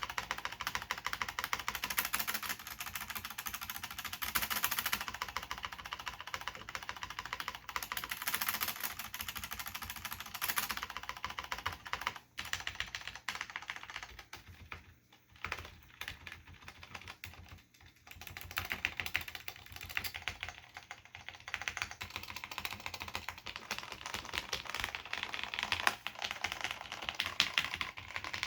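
Continuous fast typing on a mechanical keyboard with Cherry MX Black linear switches and ABS pad-printed keycaps: a dense stream of key clacks with a few short pauses in the middle.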